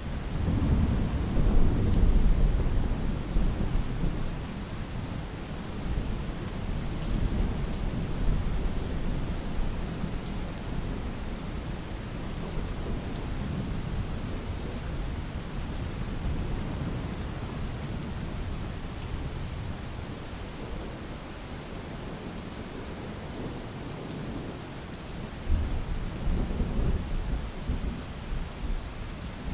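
Steady heavy rain falling, with low rolling thunder swelling in the first few seconds and again near the end.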